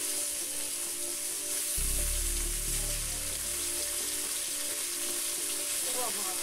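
Pieces of dhela fish frying in hot oil in a kadai: a steady sizzle while a metal spatula turns them in the pan. A low rumble comes in about two seconds in and lasts a little over a second.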